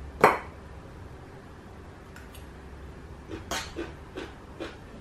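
A metal fork picking at a cooked crab's shell: one sharp clack about a quarter second in, then about five smaller clicks less than half a second apart in the last couple of seconds as the crab is pulled apart.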